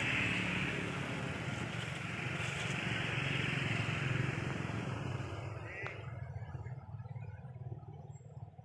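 A motor vehicle going by, its engine noise steady at first and then fading away over the last few seconds.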